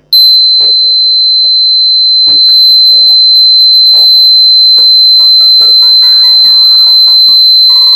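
Buzzer of a home-made, 9 V battery-powered door alarm going off: one loud, steady, high-pitched tone that comes on abruptly and holds without a break.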